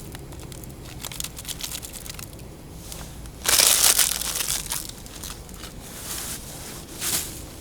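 Plastic instant-noodle packet being handled and opened, crinkling steadily, with a loud crackling burst about three and a half seconds in and a shorter one near the end.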